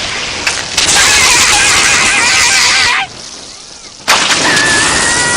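Cartoon electrocution sound effect: two long bursts of loud crackling, buzzing noise. A wavering yell sounds over the first burst and a steady tone over the second.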